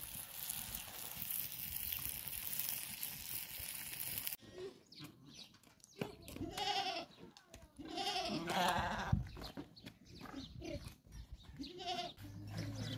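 A steady hiss that cuts off abruptly about four seconds in, then lambs bleating: a string of short, wavering calls, one after another.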